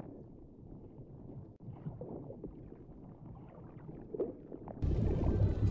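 Low, muffled underwater rumble with faint gurgles. About four and a half seconds in, loud music with a heavy low end cuts in abruptly.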